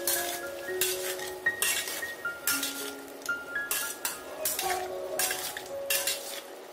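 Metal slotted spatula scraping and tossing chicken and carrot strips in a frying pan, in repeated strokes with a light sizzle between them.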